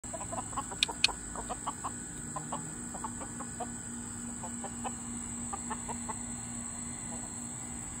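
A flock of hens clucking in a quick run of short, soft notes that thins out and stops about six seconds in, with two sharper, louder sounds about a second in. A steady high-pitched drone runs underneath.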